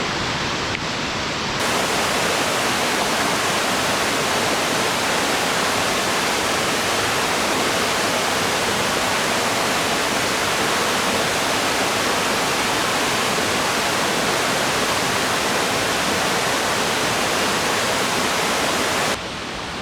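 Waterfall rushing, a steady dense noise without pitch. About one and a half seconds in it becomes louder and fuller, and it dips slightly just before the end.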